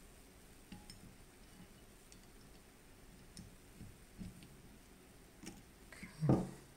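Faint, scattered light clicks of small steel parts as the cam is worked into a shotgun receiver by hand, with one short, louder low thump about six seconds in.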